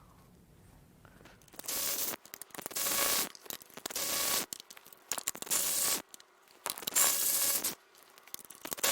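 A ratchet clicking in repeated strokes, about six bursts each lasting under a second, as bolts on the intake manifold are loosened.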